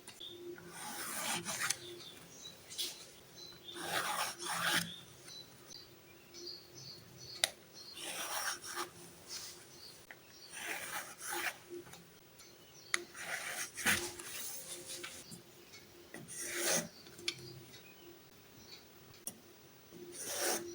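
Drawing tool scratching across paper in a series of irregular strokes, about half a second to a second each, as lines are drawn. A few sharp ticks come between the strokes.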